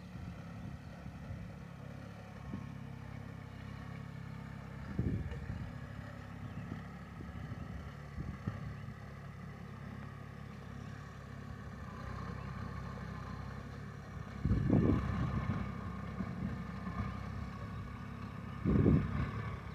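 Compact tractor's diesel engine running steadily under load while it pulls a cultivator through grassy ground, with a few short, louder low rumbles partway through and near the end.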